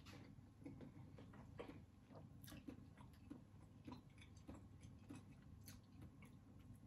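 Faint chewing of a soft fish cake (otak-otak), with scattered small mouth clicks.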